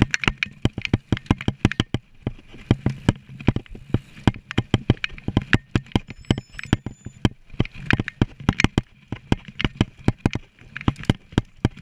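Mountain bike jolting over a rough dirt trail: a rapid, irregular clatter of knocks and rattles from the bike, over a low rumble.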